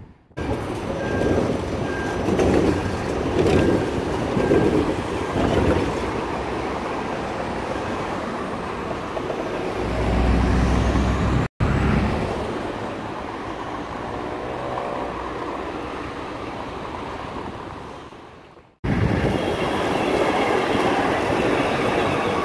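Vienna trams and street traffic running along a city street, in several takes with abrupt cuts between them. Near the end a red-and-white tram passes close by with a louder running noise and a high whine.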